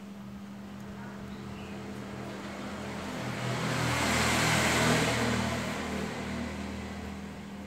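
A small electric desk fan hums steadily as it runs, while a motor vehicle passes by, swelling to its loudest about four to five seconds in and then fading away.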